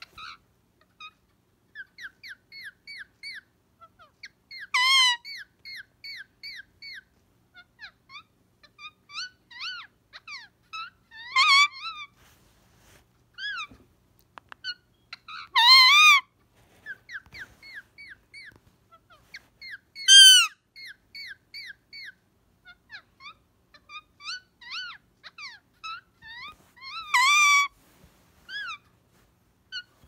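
Indian ringneck parakeet making many short, soft chirping and chattering notes, broken by five loud calls spread a few seconds apart.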